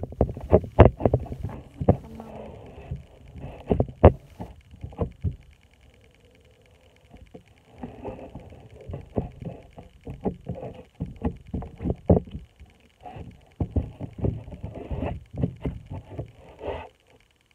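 Butter slime being squeezed and stretched in the hands, making irregular wet clicks and pops, with a pause of about two seconds midway.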